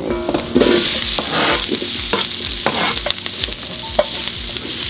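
Chopped onion, bell pepper and jalapeño sizzling in hot oil on a metal disco griddle. The sizzle swells about half a second in as they go into the pan, with a metal spatula scraping and clicking on the steel as they are stirred.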